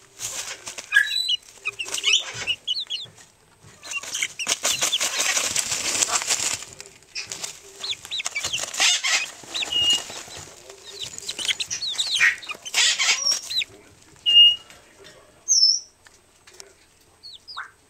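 Young chickens dust bathing in a dish of feed: wings flapping and feathers shaking in rapid rustling bursts that scatter the feed, with short chirps and peeps in between. Two sharp, loud calls come near the end.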